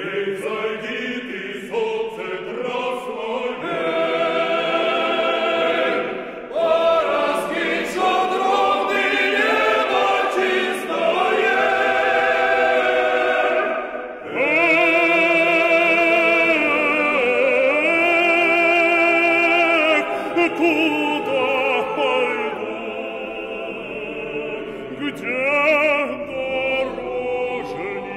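Classical vocal music: operatic singing by several voices with a choir, the held notes sung with a strong vibrato.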